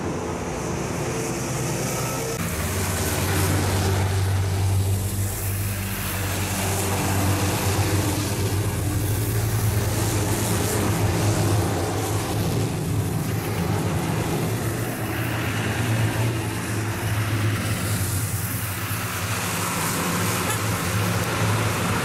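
Military convoy of armoured vehicles and army trucks driving past one after another. Heavy engines run with a steady low hum, and road and tyre noise swells and fades as each vehicle goes by.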